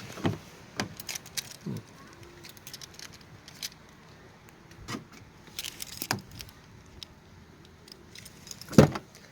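Scattered light clicks and rattles, with one loud sharp knock near the end.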